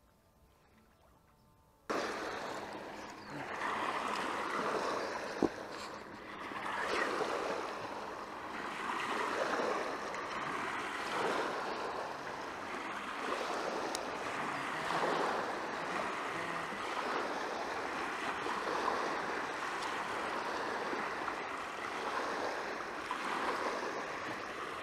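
Small lake waves washing against a rocky shore, swelling and easing about every two seconds; it starts suddenly about two seconds in, after near silence. One sharp click about five seconds in.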